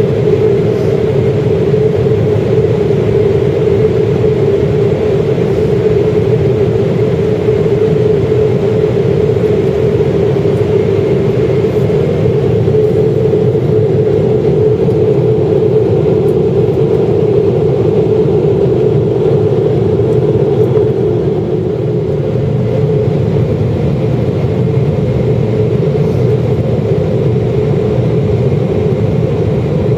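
Steady cabin noise of a Boeing 777-300ER on descent, heard from a seat over the wing: the drone of its GE90-115B turbofans and the rush of airflow, with a steady hum running through it.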